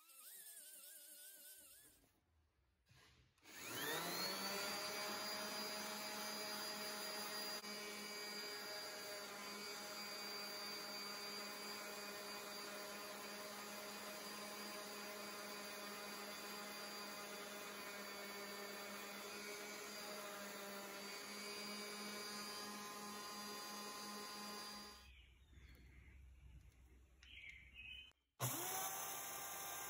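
Small right-angle die grinder with an abrasive disc spinning up and running at a steady high whine while it dresses the steel face of a ball-peen hammer. Near the end a DeWalt belt sander switches on and runs.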